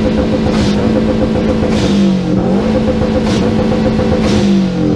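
A car engine revved hard through a loud exhaust: it climbs and holds at high revs, drops briefly about two seconds in, climbs and holds again, then falls off near the end.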